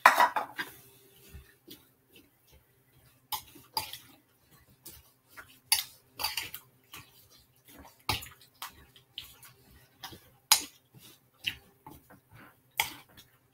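Kitchen utensil clinking, knocking and scraping against dishes in irregular short strikes, as ingredients are spooned and stirred for a slow-cooker soup.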